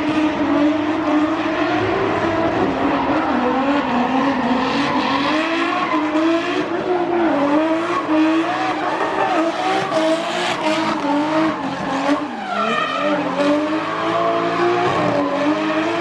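Drift car's engine held at high revs, its pitch wavering up and down as the throttle is worked through the slide, with tyres squealing. About twelve seconds in, the revs dip briefly and then climb again.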